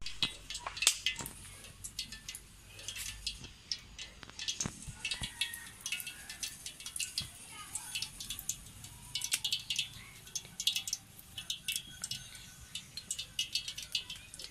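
Wood fire crackling and popping in a small clay stove under a pan of heating oil, an irregular stream of sharp little cracks with faint voices in the background.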